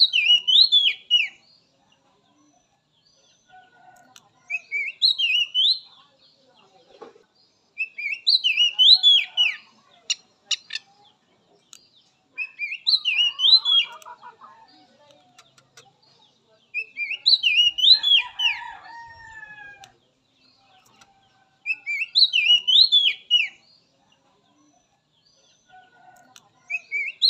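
Oriental magpie-robin (kacer) singing one short, quick whistled phrase, repeated about every four to five seconds. A brief run of clicks comes about ten seconds in.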